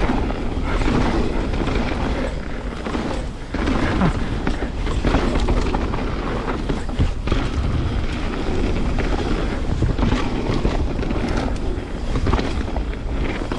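Canyon Spectral 29 full-suspension mountain bike ridden fast down a dirt trail: wind rushing over the camera microphone with a low rumble, and tyres and frame giving frequent knocks and rattles over rough ground.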